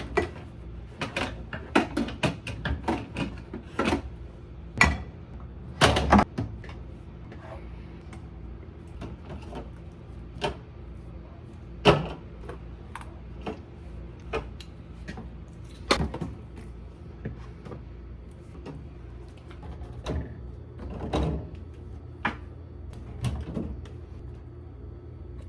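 Food containers, jars and bottles from a fridge being handled, lifted out and set down: irregular knocks and clicks, many close together in the first six seconds, then one every second or two, over a steady low hum.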